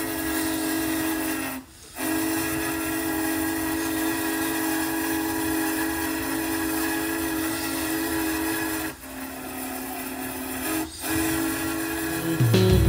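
Steam locomotive whistle blowing long, steady blasts of several tones together over a hiss, cutting off briefly about two seconds in and twice more near the end.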